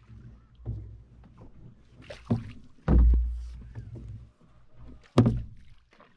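Canoe paddling: a wooden paddle dipping and knocking against the canoe, with several sudden knocks, the loudest about three seconds in and just after five seconds, the first followed by a low rumble.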